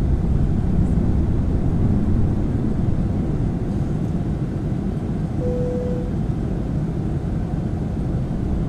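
Steady, dense low rumble that fades in at the start, with a short clear tone a little past halfway through.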